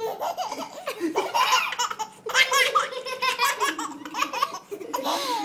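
Four-month-old baby laughing in several bouts of high, pulsing laughter, with short pauses for breath between them.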